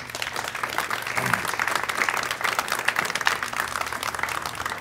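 Crowd applauding, many hands clapping at once, with a brief voice heard over it about a second in.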